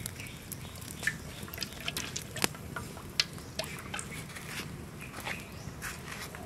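Water trickling and dripping into a metal wok of greens over a wood fire, with scattered sharp ticks and pops, the loudest about two and a half seconds in.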